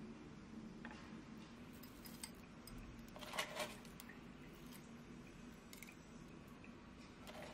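Granola poured from a container into a glass mug of yogurt: a short, crisp rattle about three seconds in. Faint clicks of handling come before it, with a low steady hum underneath.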